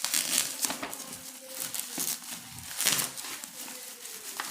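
Packaging crinkling and tearing as a parcel is unwrapped by hand, in irregular bursts, loudest near the start and about three seconds in.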